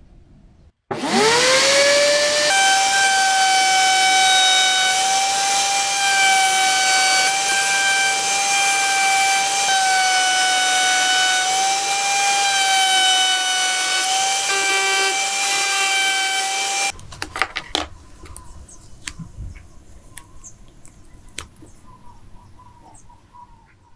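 Table-mounted router with a flush trim bit spins up with a quick rising whine about a second in, then runs at a steady high whine with slight dips in pitch. The whine cuts off suddenly about two-thirds through, followed by light clicks and knocks of pieces being handled.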